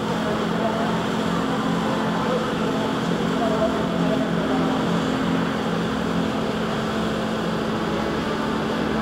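Avro Lancaster's four Rolls-Royce Merlin piston engines droning in a slow flypast, a steady drone with a slow throb to it.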